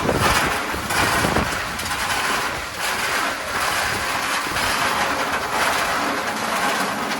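Ice vending machine dispensing a 10 kg load of ice, cubes dropping out of the chute in a steady, loud rush of noise.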